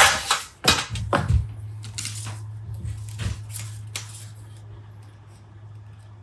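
Workshop handling sounds: several sharp clinks and knocks in the first second and a half, then softer scattered rubbing strokes that die away. A steady low hum starts about a second in and runs underneath.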